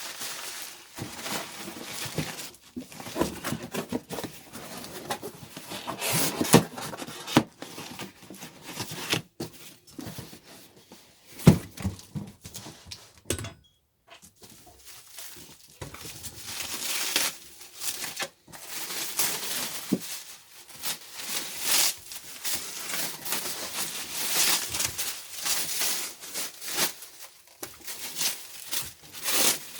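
Packing material crinkling, rustling and tearing as a boxed propane furnace is unwrapped by hand, with one sharp knock about a third of the way through.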